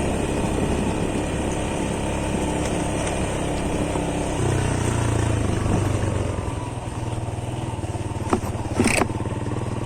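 Motorcycle engine running steadily, its pitch shifting about four and a half seconds in, with a couple of short clicks near the end.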